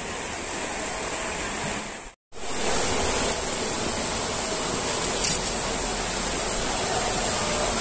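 Small stream rushing steadily over shallow riffles. The sound cuts out for a moment about two seconds in, then comes back slightly louder.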